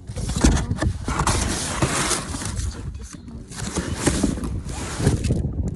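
Rustling and irregular knocking of items being shifted around among trash in a dumpster, with a brief lull about three seconds in.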